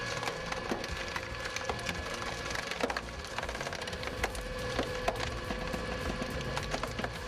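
Wood cracking and splintering in many sharp, irregular cracks as logs are split by a log-splitting machine, over its steady mechanical hum.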